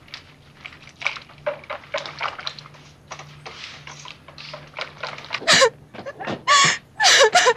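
A utensil beating in a stainless steel mixing bowl, a quick run of light clinks and scrapes. About five and a half seconds in, a woman breaks into loud crying, wailing sobs that fall in pitch.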